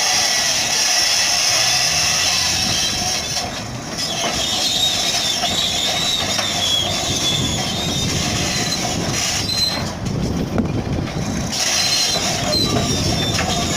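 Caterpillar bulldozer working, its diesel engine running with the steel crawler tracks squealing and clanking. The high squeal wavers and drops away briefly twice.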